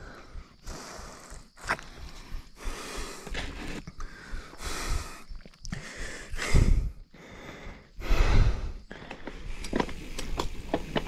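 Mountain biker breathing hard, with a noisy breath in or out about every second after a climb. There are low rumbling bursts twice in the second half and a run of small sharp clicks near the end.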